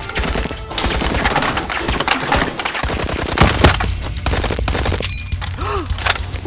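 Nerf blasters firing in rapid volleys, over background music with a steady low bass.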